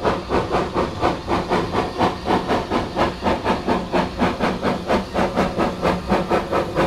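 Six-coupled Manning Wardle steam tank locomotive working a train, its exhaust beating evenly at about four chuffs a second with a steamy hiss between beats.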